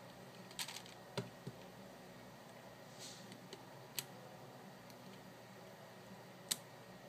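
Sparse, faint clicks and ticks of an X-Acto knife blade and fingers against a plastic twisty puzzle while stickers on it are cut and trimmed: a few taps in the first second and a half, one about four seconds in, and the loudest near the end, with a brief soft scratch about three seconds in.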